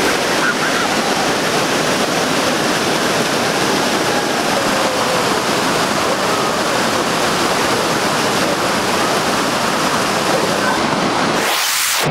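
Steady rush of river water pouring over rocks through a small cascade, a constant loud noise with no let-up.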